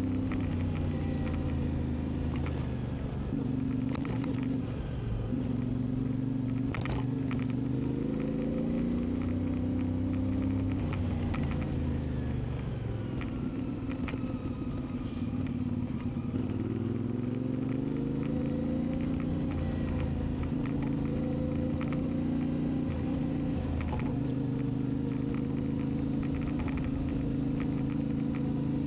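CFMoTo 450 MT's parallel-twin engine running while riding, its note dropping and climbing again several times as the revs change, with a few brief sharp knocks along the way.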